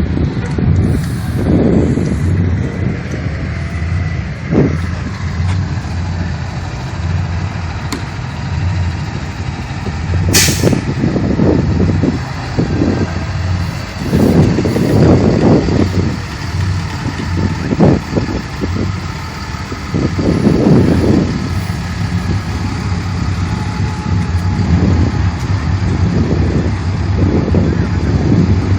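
A large engine running at low revs with a steady rumble, swelling and easing in repeated surges, and one brief sharp hiss about ten seconds in.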